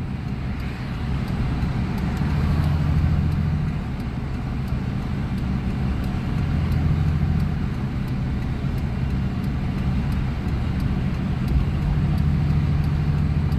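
Vehicle engine and road noise heard from inside the cab while driving at road speed, a steady low hum that swells and eases every few seconds.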